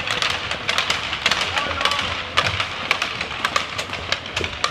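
Scattered sharp claps and taps, several a second at uneven spacing, over voices and chatter in an ice hockey rink.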